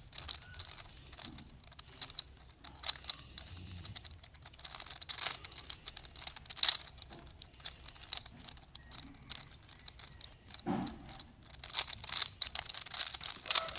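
Rubik's Cube layers being turned by hand: irregular, quick plastic clicks and clacks as the faces snap round, like typing on a keyboard.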